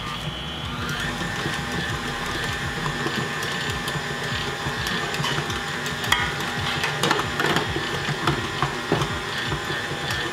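Electric tilt-head stand mixer running steadily, its dough hook kneading bread dough in a steel bowl; the motor note rises a little about a second in. From about six seconds in, a few sharp knocks and clinks sound over the running motor.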